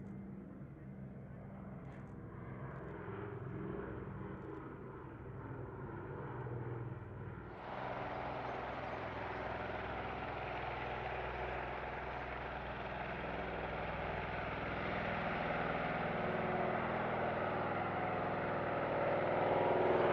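de Havilland Canada DHC-4 Caribou's twin Pratt & Whitney R-2000 radial piston engines and propellers droning in flight. About seven or eight seconds in the sound jumps abruptly louder and fuller, then grows louder still near the end.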